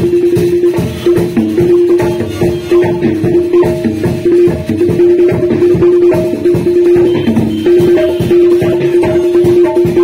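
Music with a dense, fast percussion beat and a steady held note over it that breaks off briefly now and then.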